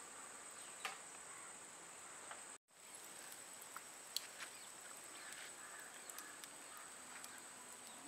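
Faint outdoor ambience with a steady high-pitched insect trill and a few faint ticks; the sound cuts out completely for a moment about two and a half seconds in.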